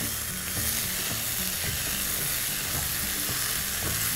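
Vegetables sizzling steadily as they stir-fry over high heat in a wok, tossed and scraped with a wooden spatula.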